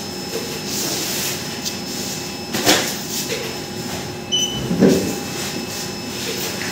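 Mail bags being packed in a sorting room: a steady background noise with rustles and knocks of handling, the loudest thuds about two and a half and five seconds in, and a short high beep about four and a half seconds in.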